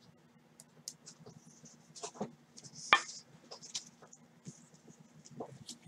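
Faint, scattered clicks and light taps of trading cards and plastic card holders being handled, with one sharper click about three seconds in, over a low steady hum.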